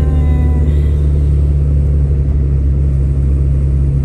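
A moving car's engine and tyre noise, heard as a steady, loud low rumble from inside the car while it drives along a paved road. A few faint, brief high sounds come in the first second.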